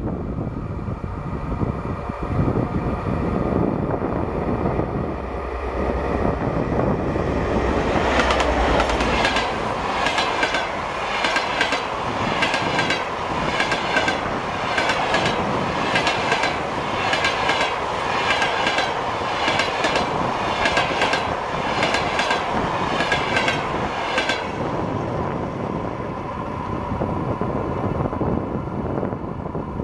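A train running on jointed track: a steady running noise, with the wheels clacking over the rail joints in an even rhythm of about one and a quarter beats a second from about eight seconds in until about twenty-four seconds in.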